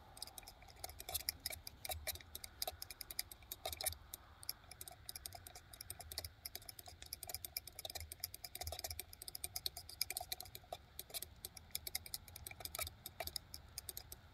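A metal spoon clicking and scraping against the inside of a stainless steel camp cup while stirring instant mashed potatoes, in rapid, irregular clicks.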